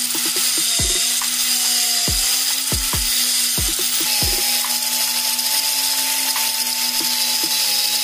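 Angle grinder running and cutting into PVC plastic: a steady high whine with a hiss from the cut.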